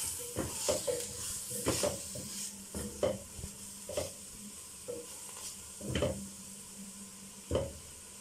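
A silicone spatula stirring and scraping shrimp and crab sticks around a stainless steel pot in irregular strokes, over a steady sizzle of food frying in ghee. Two louder scrapes come about six and seven and a half seconds in.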